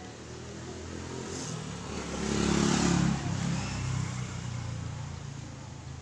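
A motor vehicle's engine passing by, growing louder to a peak about two and a half seconds in and then fading away.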